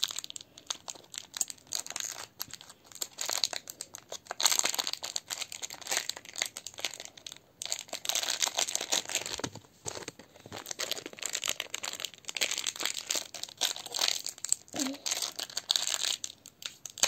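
Crinkly plastic blind-bag wrapper being crinkled and torn open by hand, in irregular crackling bursts with brief pauses.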